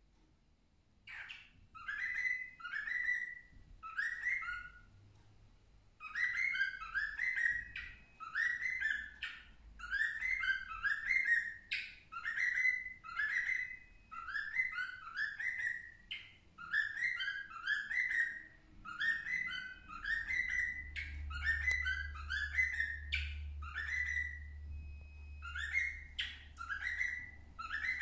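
Young cockatiel whistling its song: quick runs of short, rising whistled notes, repeated phrase after phrase with brief pauses between.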